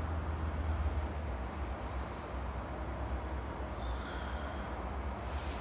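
Steady low rumble of outdoor background noise, with no clear single event.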